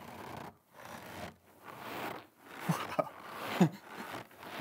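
A bag of cornstarch squeezed in the hands in a steady rhythm, giving a squeaky crunch like footsteps in snow (a Foley trick). About six crunches come, roughly one every three-quarters of a second.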